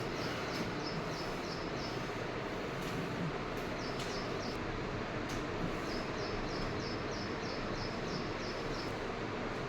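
Steady background hiss with a short, high chirp repeating about three to four times a second in runs of a few seconds, and a few faint clicks.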